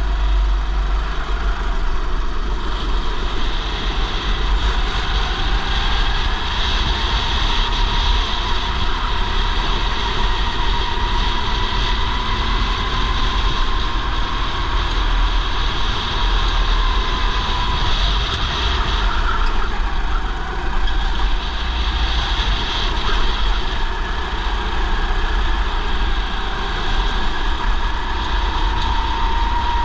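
Race kart engine running under load, its pitch slowly rising and falling as the kart accelerates out of corners and slows into them. A heavy, steady low rumble of wind buffets the helmet-mounted camera's microphone.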